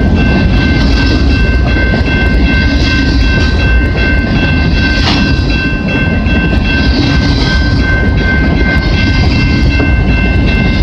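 Freight cars of a passing train rolling by at close range: a steady loud rumble with scattered wheel clicks and a continuous high-pitched squeal from the wheels.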